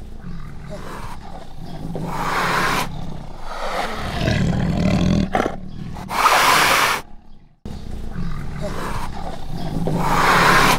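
A big cat's rough roars and snarls, a series of harsh calls about a second long each. The sound cuts out completely for a moment about seven seconds in, then the calls resume.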